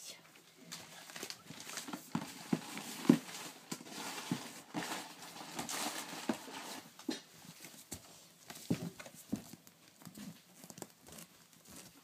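Baby African grey parrot chicks making short, scattered calls as they shift about on crinkling paper towels.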